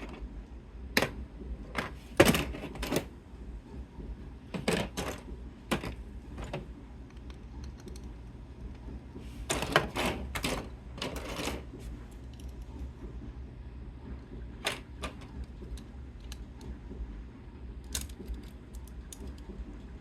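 Small hard plastic parts clicking and clattering as they are handled, in irregular bursts with pauses, thinning to occasional single clicks in the second half.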